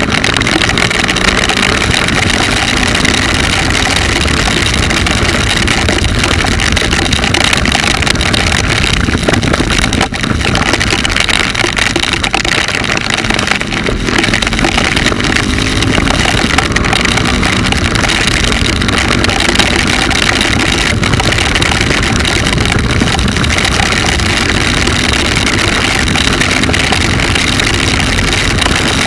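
Wind noise on the camera microphone of a small motorcycle riding through the rain on a wet road, with the motorcycle's engine underneath, its pitch rising several times as it accelerates.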